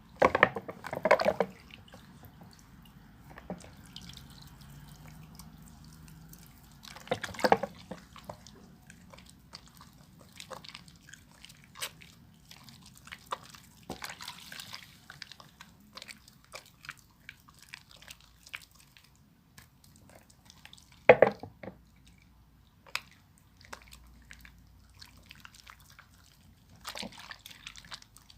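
Wet bar soap being lathered: many small, scattered wet clicks and squishes, with louder bursts of rubbing near the start, about seven seconds in and about twenty-one seconds in.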